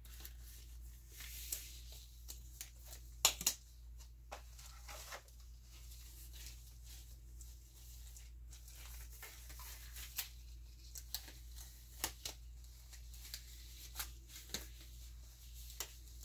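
Faint, scattered clicks and crinkly rustles, one sharper click about three seconds in, over a low steady hum.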